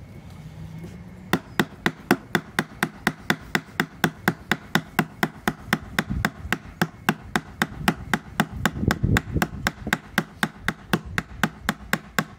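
Small hammer striking a rivet through a wooden shield, peening it over to hold the handle on. A quick, even run of knocks, about three or four a second, starting about a second in.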